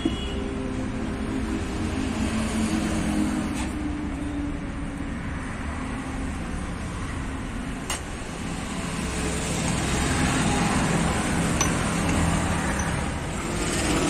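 Steady rumble of a motor vehicle running nearby, with a single sharp metallic click about 8 seconds in.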